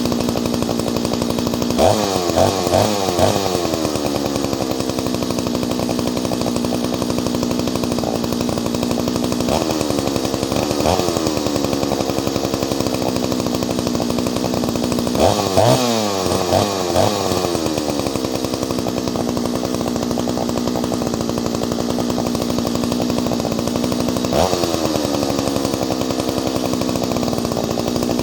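Ported Solo 670 two-stroke chainsaw idling, with quick throttle blips that rev up and drop straight back to idle: a cluster of several about two seconds in, two more around ten seconds, another cluster around fifteen seconds, and a single one near the end.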